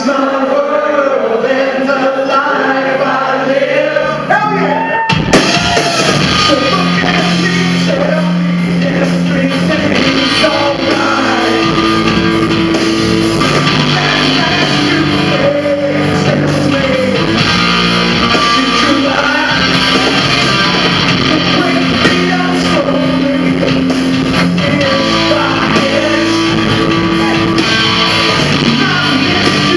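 Live rock band performing: a voice sings over light backing, then the full band comes in about five seconds in with bass, guitar and drums, and the song plays on loudly with singing.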